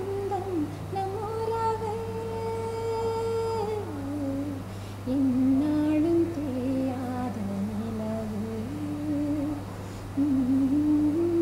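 A woman humming the melody of an old Tamil song unaccompanied, in long held notes that glide from pitch to pitch with brief breaks, over a steady low hum.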